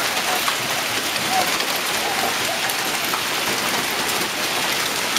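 Hailstones pelting pavement and other hard surfaces in a dense, steady hiss of impacts, dotted with many sharp ticks.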